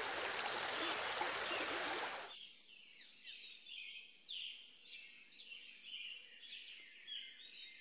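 A steady hiss of running water that cuts off abruptly a little over two seconds in, followed by faint birdsong: many short, quick falling chirps.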